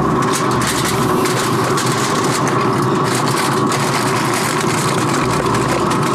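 Aluminium foil crinkling and rustling as it is folded and crimped over the rim of a disposable roasting pan, over a loud, steady machine-like hum.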